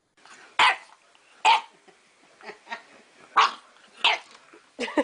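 A dog barking: four loud, short barks spaced irregularly, with a few softer sounds between them.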